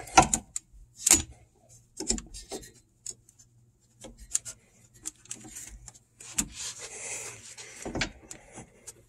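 Irregular metal clicks, knocks and scrapes of locking pliers and a steel emergency brake cable working against a rear brake caliper as the cable is pulled around toward its lever, with gloved hands rubbing. There is a longer stretch of scraping a little after the middle.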